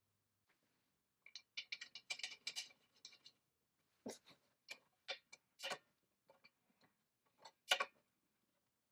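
Light clicks and taps of small metal fasteners handled by hand as a square nut is fitted. A quick cluster of clicks comes in the first couple of seconds, then single clicks spaced about half a second to a second apart, the loudest near the end.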